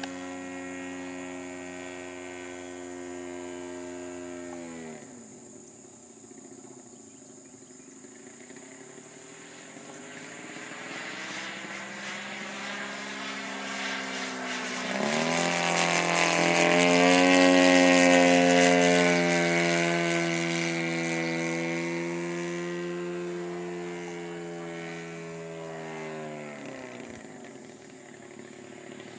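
Radio-controlled CAP aerobatic model airplane's engine and propeller running in flight. The pitch drops as the throttle is pulled back about five seconds in, then climbs sharply around fifteen seconds, and the sound is loudest a few seconds later. It throttles back again near the end.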